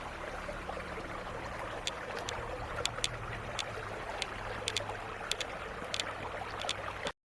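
Steady outdoor rumble and hiss with a low hum, with a dozen light, sharp clicks scattered through it. The sound cuts off abruptly near the end.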